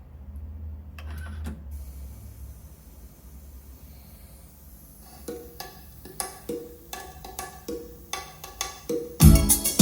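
Music playing back on a JVC TD-V661 cassette deck. After a low hum and a couple of mechanical clicks, a quiet rhythmic intro comes in about five seconds in, and loud music with a heavy drum beat starts near the end.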